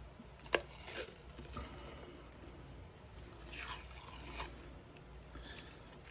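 Hockey athletic tape being pulled from the roll and pressed and rubbed onto a rifle handguard: faint crinkling and scraping, with a few light ticks in the first second and a longer rustle a little past the middle.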